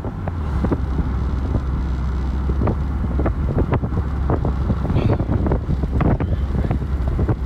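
Moving car: a steady low road and engine rumble with wind noise on the microphone, and many short knocks and ticks scattered through it.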